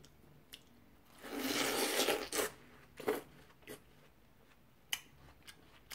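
A bite into a ripe watermelon wedge: one juicy, crisp crunch lasting about a second, starting a little over a second in. A few soft chewing clicks follow.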